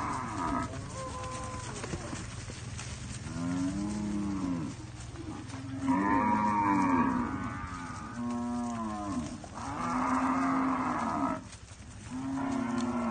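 Young Brahman-cross cattle bawling, one long call after another with several overlapping, each rising and then falling in pitch.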